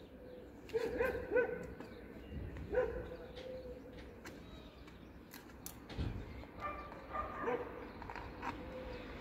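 A dog barking in short calls: a few about a second in, one near three seconds, and another run around seven seconds in.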